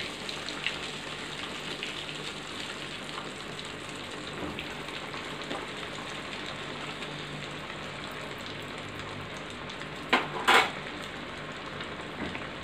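Breadcrumb-coated chicken nuggets deep-frying in hot oil in a kadai: a steady sizzle, with two short louder bursts of noise about ten seconds in.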